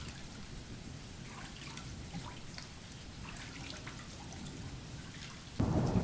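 Rain with scattered drips over a low rumble. A little before the end, heavy rain and thunder set in suddenly, much louder.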